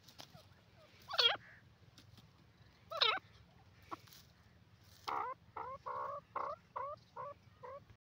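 Grey francolin calling: two loud single calls with a quick warbling rise and fall, then from about five seconds in a fast series of about eight short repeated notes, roughly three a second.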